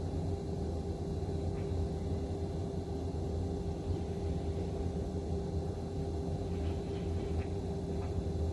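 Distant long-reach demolition excavator at work: a steady low engine rumble with a constant hum over it, and a few faint knocks from about seven seconds in.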